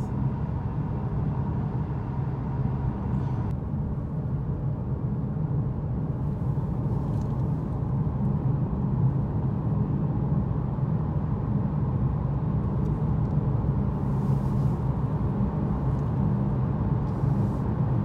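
Steady low road and engine noise of a car driving along, heard from inside the cabin.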